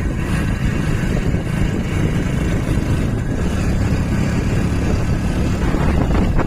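Steady low rumble of wind buffeting the microphone on a moving motorbike, mixed with the bike's engine and road noise.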